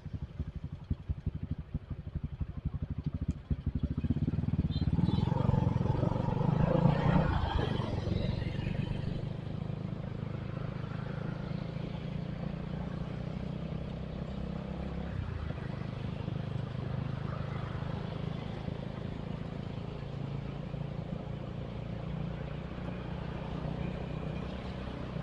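Motorcycle engine idling with rapid, even firing pulses, then pulling away louder a few seconds in and settling into a steady run while riding.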